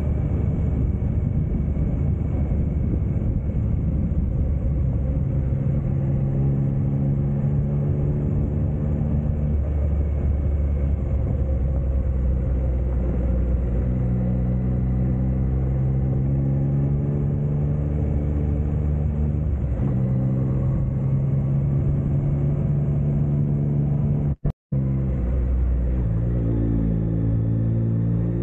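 Motorcycle engine running under way, its pitch shifting in steps as the throttle and gears change on a winding road, over a steady low rumble of wind. The sound cuts out completely for a fraction of a second near the end.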